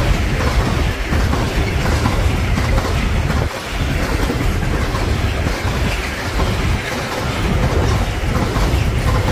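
A train running past on the track: a loud, steady rumble of wheels rolling on the rails.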